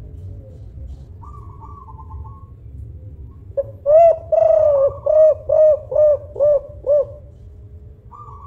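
Spotted dove (tekukur) giving its cooing song about three and a half seconds in: a short note and two longer coos, then a run of five short, evenly spaced coos ending a second or so before the end.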